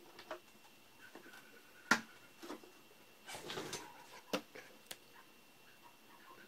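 Small clicks and knocks of tools being handled on a workbench as a flux pen is picked up and uncapped. The sharpest click comes about two seconds in, with a short rustle of handling midway and two lighter clicks after it.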